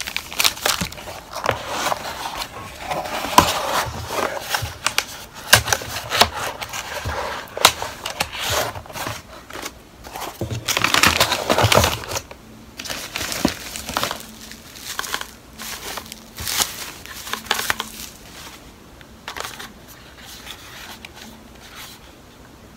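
Plastic packaging wrappers crinkling and rustling as they are handled, with many sharp clicks and light knocks. The handling is busiest in the first half, thins out, and is much quieter over the last few seconds.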